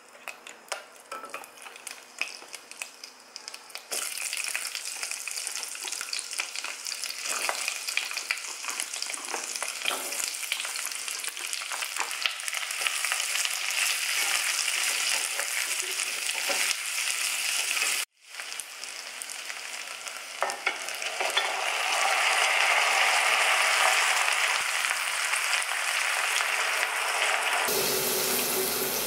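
Chopped carrot, onion and garlic sizzling and crackling as they stir-fry in hot meat fat in a pot, stirred with a spatula; the sizzle is sparse at first, then dense and steady. Near the end the sound changes to red wine pouring from a bottle into the pot.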